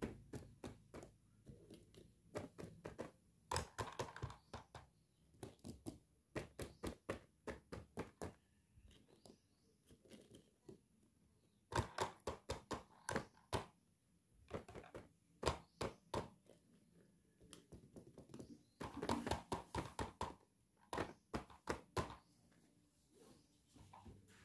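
Hard plastic toys being handled and set down on a mat: quick clusters of light plastic clicks and knocks, with some crinkling of a clear plastic pouch.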